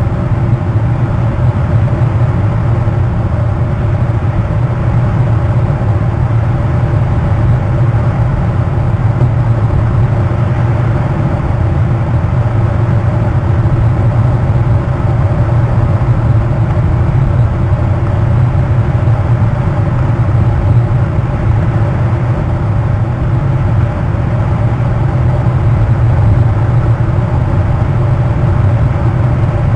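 Steady, loud low drone that holds unchanged throughout, with fainter steady hum tones above it.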